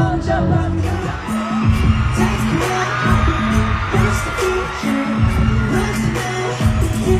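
Live pop song with singing over heavy bass and a steady drum beat.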